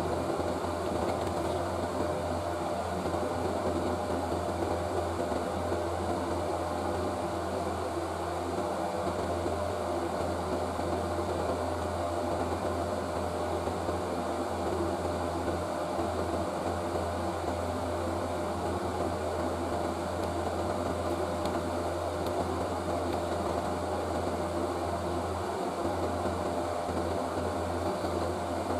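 An electric fan or blower running steadily, a constant rushing hum with a steady tone, unchanged throughout.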